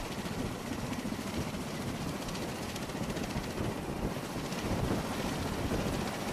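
MV-22 Osprey tiltrotor running on deck: its turboshaft engines and turning rotors make a steady, even roar, with wind on the microphone.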